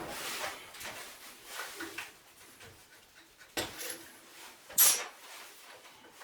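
Scattered small knocks and rustles of handling, with two sharper clanks about three and a half and about five seconds in, the second the louder.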